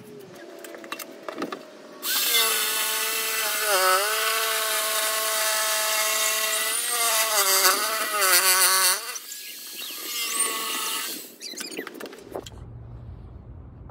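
Corded electric jigsaw cutting a particle-board panel. The motor whine starts about two seconds in and runs for about seven seconds, dipping in pitch a few times as the blade loads in the board. After a short pause a second, briefer cut follows.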